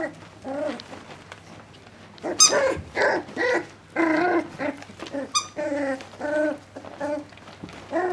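Young puppies giving a run of short yips and little play growls, one after another, with two very brief sharp high squeaks about two and a half and five and a half seconds in.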